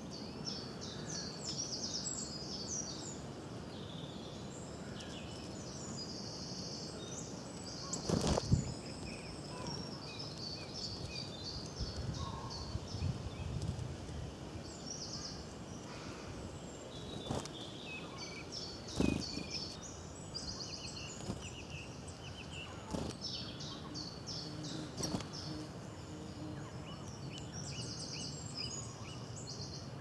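Several small songbirds singing and chirping in quick high phrases, with a few short soft thumps, the loudest about eight seconds in and another about nineteen seconds in.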